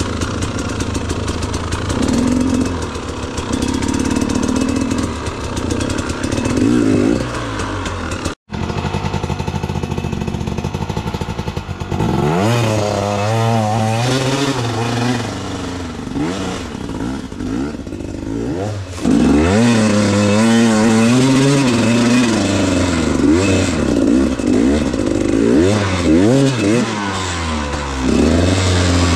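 KTM 250 EXC two-stroke enduro bike engine under way, revving up and down again and again as the throttle is worked. The sound drops out for an instant about eight seconds in.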